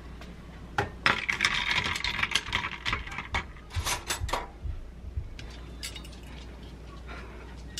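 Ice cubes and a metal utensil clinking rapidly against a tall glass of iced americano for a few seconds, then a few lighter, separate clicks.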